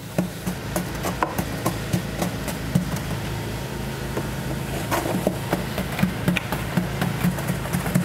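Wooden ramrod striking over and over as it packs castable refractory down into a furnace mold, about three knocks a second at an uneven pace, over a steady low hum.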